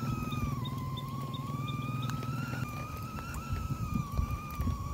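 Background music: a single held, slightly wavering high note over a low droning bed.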